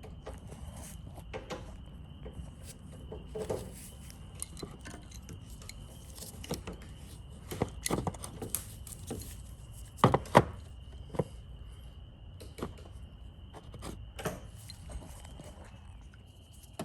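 Scattered metallic clinks and knocks of hand tools and a steel brace and bolts being handled and fitted under a car, the loudest pair about ten seconds in.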